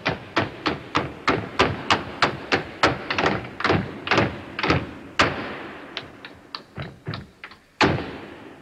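Tap shoes striking a stage floor in an unaccompanied tap break: a run of sharp taps at about three a second, getting softer after about five seconds and closing with one loud tap near the end. The band's last chord dies away in the first second.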